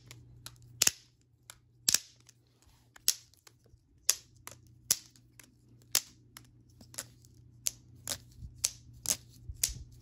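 NDK Arts Poni balisong trainer being flipped, its handles clacking together in sharp clicks, about one a second at first and coming faster, nearly two a second, near the end. The clack sounds much like an original Squiddy trainer's.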